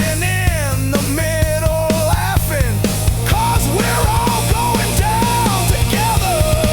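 Loud rock music: a fast, steady drumbeat and dense band sound under a lead melody that bends and glides up and down in pitch.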